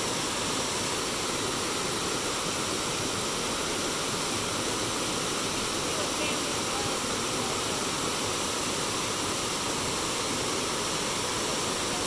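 River water running, a steady, unbroken rush of noise with no pauses or surges.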